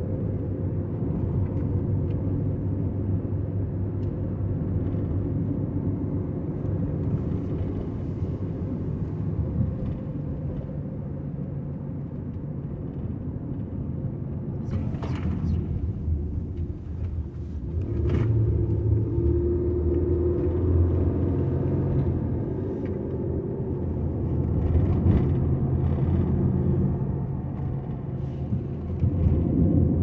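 Car interior road noise: a steady low rumble of tyres and engine while driving on a paved road, the engine note shifting now and then. Two sharp clicks sound about halfway through.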